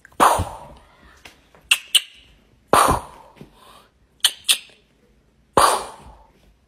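Fingers snapping at a kitten, two quick snaps at a time, twice. Between the snaps come three louder short bursts, each fading over about half a second.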